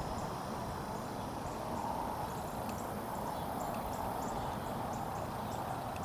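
Steady rush of flowing river water over rocky shallows, with faint, short high chirps scattered through it.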